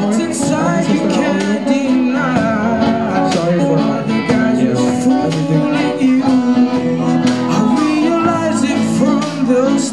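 A live band playing a song: guitar with a singing voice over it, with steady sustained notes and a regular strummed or drummed beat.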